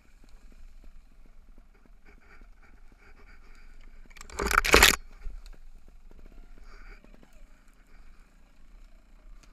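Mountain bike rolling downhill over a rough grassy dirt trail, its tyres crunching and the frame and chain rattling with many small clicks over the bumps. About halfway through comes one loud, rough burst of noise lasting under a second.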